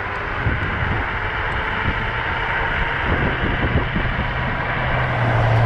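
Wind rushing over the microphone and road noise from an Apollo Ghost electric scooter riding at speed and picking up speed, from about 25 to 30 mph. A low steady hum underneath grows louder over the second half.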